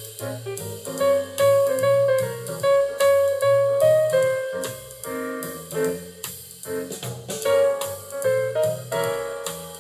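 Instrumental jazz-style music with piano and drums playing back from a cassette tape on a Vector Research VCX-200 stereo cassette deck.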